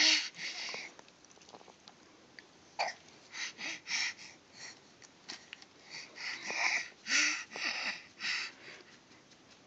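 Baby's excited breathy panting: quick runs of short huffs, once about three seconds in and again from about six seconds.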